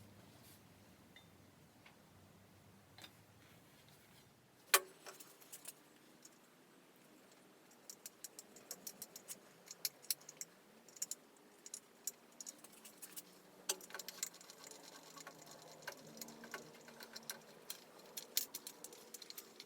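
Light clicks and clinks of small aluminium fence parts and brackets being handled and set down on a workbench. One sharp knock comes about five seconds in, then a long run of quick small clicks from about eight seconds on.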